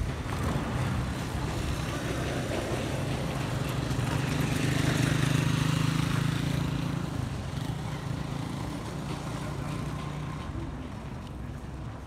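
A small motorcycle's engine passing close by: it grows louder over the first few seconds, then fades away.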